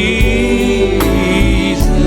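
Instrumental live worship band music: a high, wavering melody line is held over steady keyboard chords and bass, with a cymbal-like crash about halfway through.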